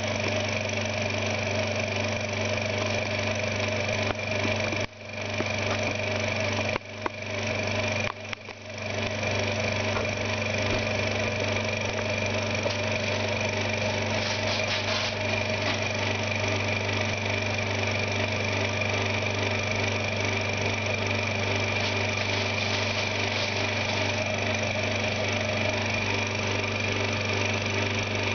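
Varian vacuum pump running steadily with a constant hum, evacuating a Pirani gauge down from atmospheric pressure. The sound briefly dips a few times between about five and nine seconds in.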